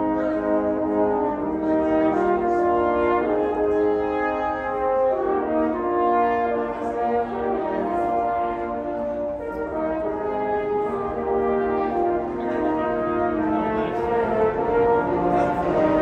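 A quartet of French horns playing together in harmony: several held notes sound at once as chords, moving to new chords every second or so.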